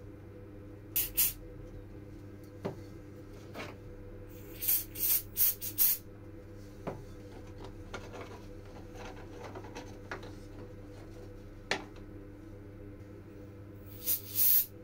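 An aerosol spray can hissing in two short bursts near the end, with similar short hisses about a second in and a quick cluster of four about halfway. Light clicks and rubbing of small wooden parts being fitted together, over a steady electrical hum.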